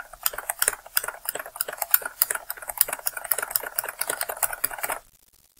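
Computer keyboard clacking in a rapid run of key presses, the Ctrl+V paste shortcut hit over and over. The clacking stops abruptly about five seconds in.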